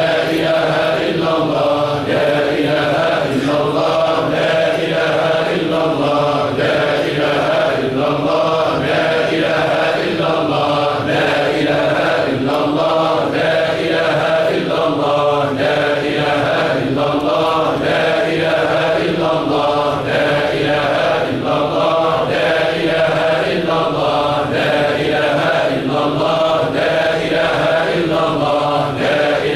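A large group of men chanting a Sufi dhikr in unison, repeating one short phrase over and over in a steady cycle about every two seconds.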